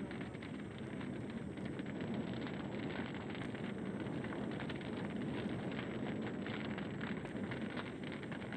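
Steady crackling static hiss, like worn analogue videotape noise, with a faint thin high whine running under it.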